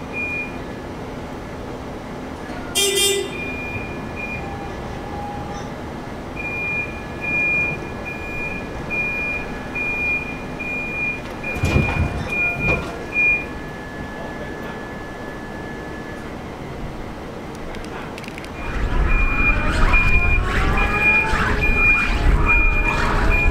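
Railcar mover's warning beeper sounding in short high beeps, about two a second. There is a brief horn toot about three seconds in. From about nineteen seconds the mover's engine runs loudly with whining glides as it drives along the street track.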